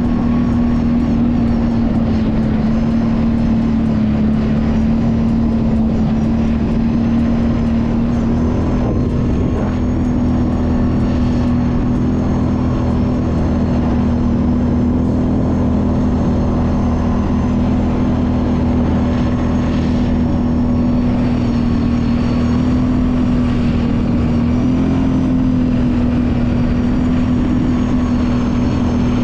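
Kawasaki Brute Force 750 ATV's V-twin engine running at a steady cruising speed while riding a trail. Its pitch holds nearly level, with only slight dips and rises.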